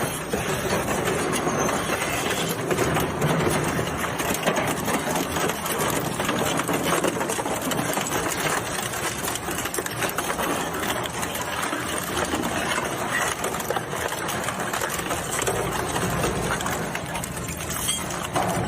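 Plastic shredder machine running steadily, a dense, even mechanical noise with a fast rattle.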